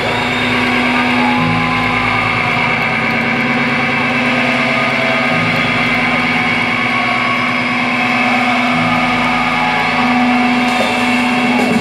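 Live rock band's instruments holding a steady, unrhythmic drone through the arena PA, its low note shifting about a second and a half in, again around five seconds and near nine seconds.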